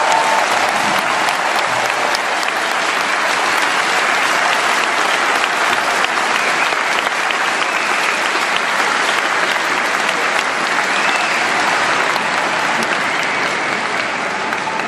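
Large arena concert audience applauding steadily.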